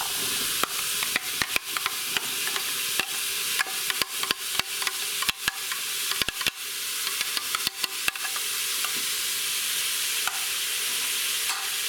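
Diced onions frying in butter in a hot electric pressure cooker pot, with a steady sizzle, as diced green bell pepper is scraped in with a metal spoon. Quick spoon clicks and taps run through the first eight seconds or so, then the sizzle goes on alone.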